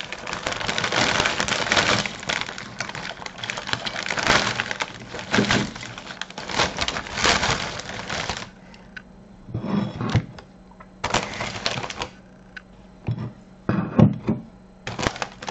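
Potato chips poured from a crinkly chip bag onto a plate: a dense crackling rustle of bag and tumbling chips for about eight seconds, then scattered crinkles and clicks as the pouring stops.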